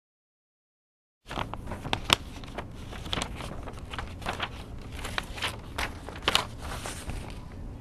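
Scattered clicks, taps and rustles in a small room, starting about a second in and cutting off sharply at the end.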